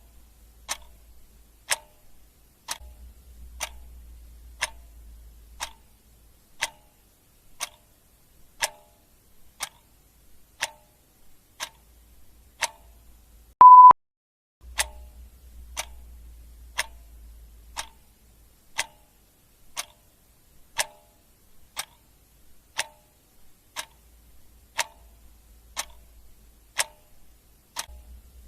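Clock ticking steadily, about one tick a second. About fourteen seconds in, a short, loud electronic beep at a single pitch sounds once, then the ticking carries on.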